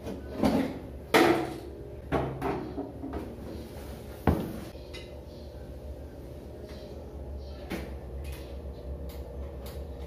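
Plastic knocks and clatters as the casing cover of an AEG single-point shower water heater is handled and taken off: about four sharp clunks in the first half, the sharpest about four seconds in, then a steady low hum.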